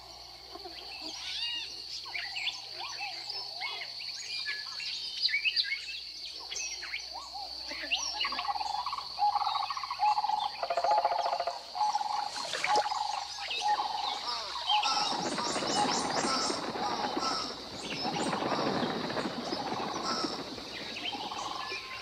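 Swamp wildlife soundscape: many short bird chirps and calls over a steady high-pitched drone. About fifteen seconds in, a denser, louder chorus of calls joins and lasts for several seconds.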